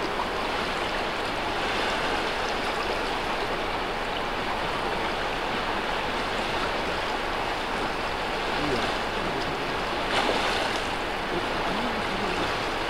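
Steady rush of flowing river water, with a brief louder burst of noise about ten seconds in.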